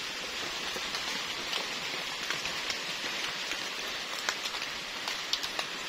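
Light rain falling steadily, an even hiss with a few scattered drips ticking through it.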